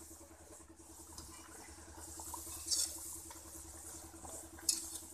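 Sattu-stuffed kachoris sizzling steadily in hot oil in a kadhai, with the wire skimmer scraping against the pan twice, a little before three seconds in and near the end.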